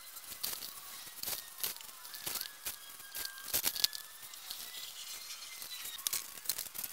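Gloved hands scooping and pressing a gritty cement-and-perlite mix against a plastic-wrapped exercise ball: irregular crunchy scraping and crackling.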